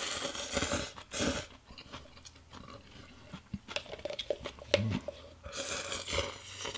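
A person slurping up pho noodles, one long slurp at the start and another near the end, with wet chewing and small mouth clicks in between.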